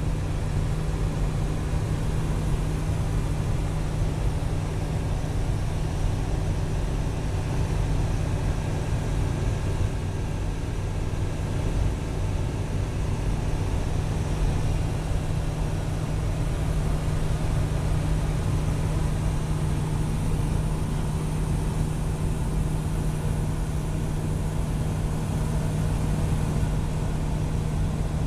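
Single-engine light aircraft's piston engine and propeller running steadily in flight, heard from inside the cockpit as an even, low drone.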